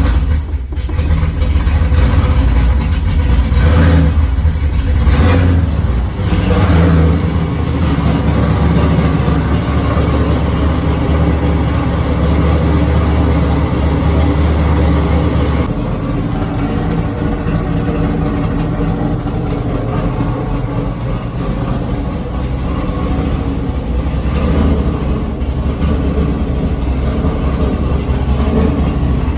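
Built Trans Am engine running after a no-start fault caused by a damaged wire was repaired. It is revved unevenly in the first several seconds, then runs steadily, with a change in its low tone about halfway through.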